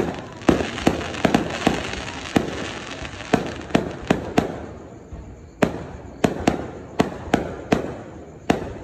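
Aerial fireworks bursting overhead: a rapid string of sharp bangs, about two a second, over a fizzing crackle from the bursting stars. The crackle dies down about halfway through while the bangs carry on.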